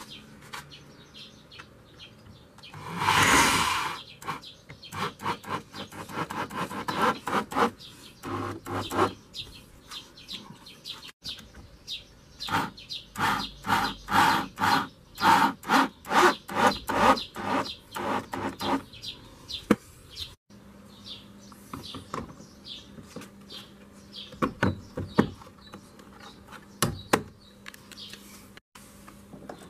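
Power drill driving screws into a wooden block: one longer run about three seconds in, then many short pulses of the motor in quick succession, with knocks and clicks of handling and fitting a plastic hose holder in between.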